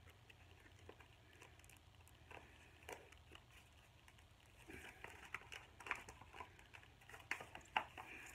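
Faint crinkling and rustling of a vinyl record's plastic wrap and sleeve being handled, a few light clicks at first and then a denser run of crackles from about halfway through.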